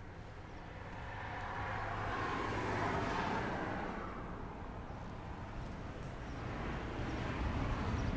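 A passing car's engine and tyre noise, rising to a peak about three seconds in and fading, then another vehicle approaching near the end.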